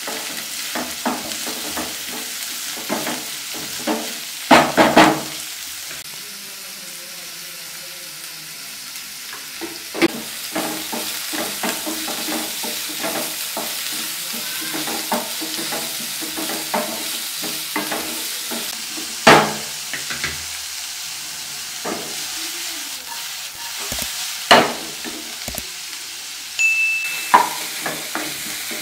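Shredded cabbage and carrot sizzling as they fry in a nonstick pan, stirred with a wooden spatula that scrapes and clicks against the pan. A few louder knocks stand out where the spatula strikes the pan, one about four and a half seconds in and others later on.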